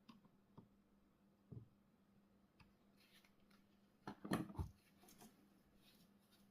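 Light clicks and taps of small tools being handled at a soldering bench, with a short cluster of louder knocks about four seconds in, over a faint steady hum.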